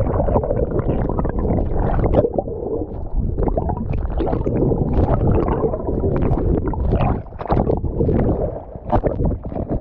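Muffled rumble and gurgling of water moving around a camera held underwater, with irregular sloshing.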